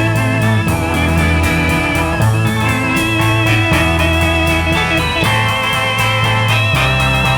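Rock band playing an instrumental passage with no vocals: electric guitar and electric organ over bass and drums, with bass notes changing about once a second under a steady beat.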